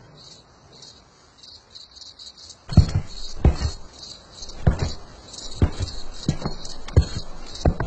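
Quiet at first, then about a third of the way in a run of sharp, heavy thumps starts, coming at an uneven pace of one or two a second, each dying away quickly.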